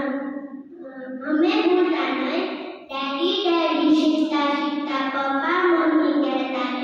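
A child reciting a Gujarati poem into a microphone in a sing-song, half-sung voice, holding some notes, with a short pause about a second in.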